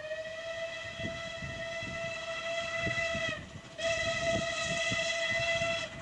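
Steam locomotive's whistle giving two long blasts: the first lasts about three and a half seconds, then after a short break a second runs for about two seconds.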